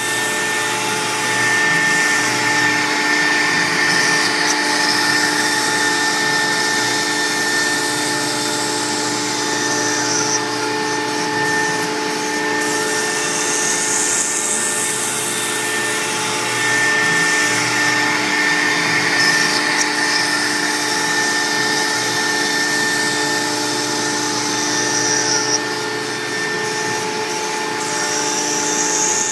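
CNC router spindle running and cutting a sign: a steady whine under a hiss that swells and fades every few seconds as the bit moves through its path.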